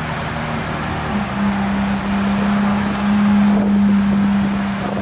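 Car engine running with a steady low hum over street noise; its pitch steps up about a second in and then holds.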